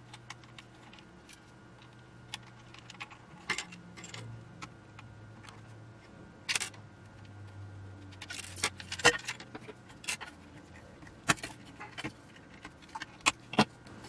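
Irregular light metallic clicks and clinks as a screwdriver works screws loose on small metal clamps inside an old gyroscope's metal casing and the clamps are lifted off and set down; the loudest cluster of clinks comes about two thirds of the way through.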